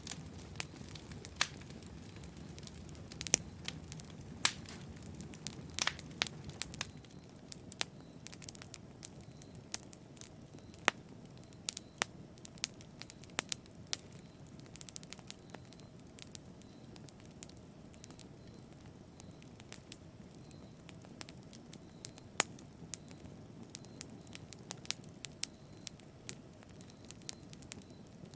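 Wood fire crackling, with frequent irregular sharp pops and snaps over a low, steady rumble of burning. The rumble eases slightly about seven seconds in.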